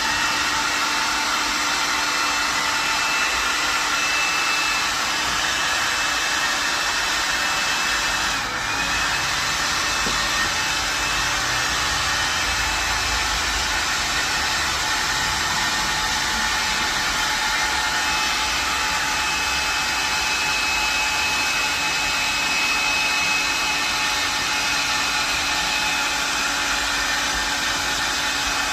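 Electric air blower running steadily as it inflates a giant balloon, a steady rushing noise with a whine over it; the sound dips briefly about eight seconds in.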